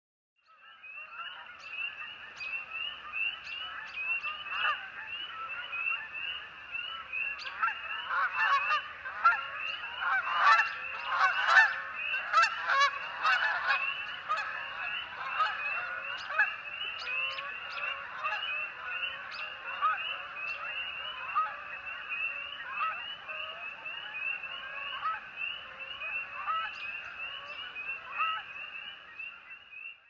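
A flock of Canada geese honking, many calls overlapping in a continuous chorus that is busiest and loudest about a third of the way through.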